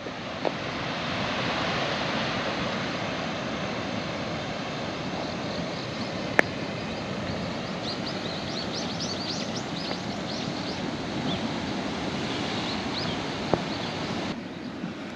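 Steady rush of sea waves on the shore with wind. A run of short high chirps comes in through the second half, and there is one sharp click a little before halfway.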